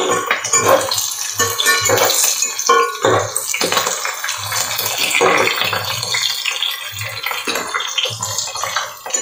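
Whole spices, green chillies and cashews frying in hot oil, sizzling and bubbling, while a spatula stirs them in the pot with repeated scraping strokes.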